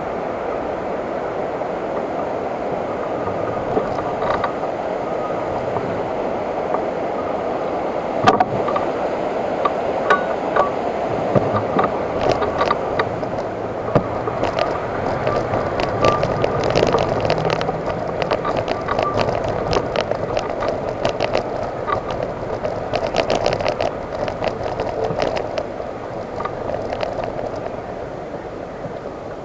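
Electric wheelchair driving along a paved path: a steady motor and tyre rumble with many sharp rattling clicks from the chair jolting over the surface, busiest in the middle.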